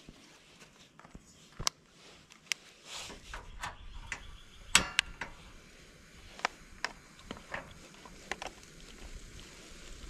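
Scattered light clicks and knocks of cooking utensils and gear being handled, about ten in all, the loudest a little under five seconds in. A low steady rumble sets in about three seconds in.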